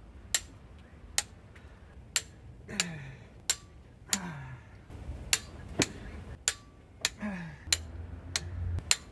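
Sharp, separate clicks from a large ratcheting torque wrench working cylinder head studs up to torque, about one to two a second, with a few short grunts of effort in between.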